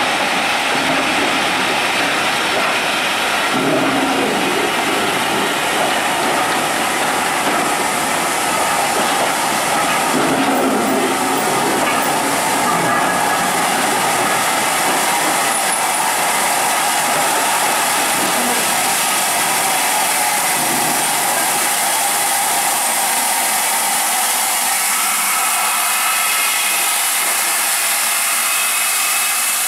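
Train noise: a steady, loud hiss with little low rumble, with some lower rumbling in the first half.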